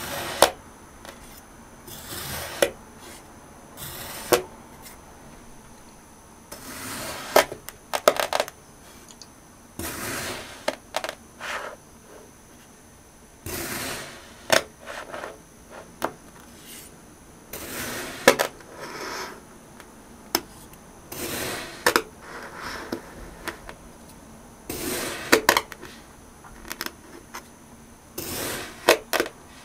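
A knife slicing down through packed kinetic sand again and again, each cut a short crunching stroke with sharp clicks in it, about one every two to three seconds.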